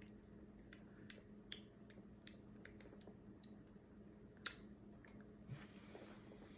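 Near silence: faint, scattered clicks and taps, one sharper than the rest past the middle, over a low steady hum.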